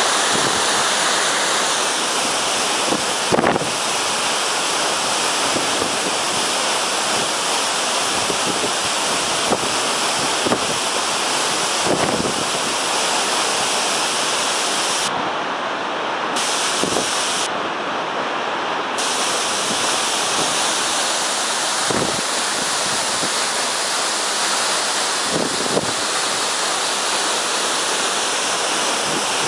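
Waterfall: a steady, loud rush of falling water, with a few brief bumps of wind on the microphone.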